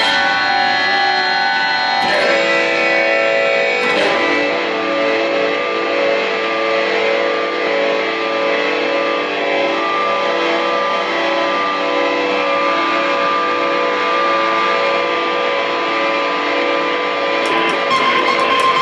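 Mosrite electric guitar bowed through effects: layered, held droning notes with two sharp attacks near the start, then a steady pulsing pattern. Near the end, quick picked notes come in.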